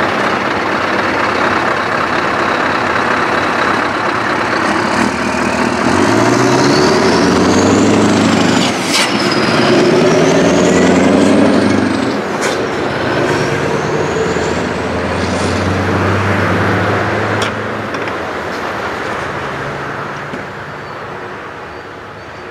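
Scania R620's V8 diesel with open exhaust pipes pulling a loaded truck-and-trailer combination away. The engine note rises and falls through the gears, loudest about halfway, then fades as the truck drives off. A few sharp clicks and a high whistling glide sound over the engine around the middle.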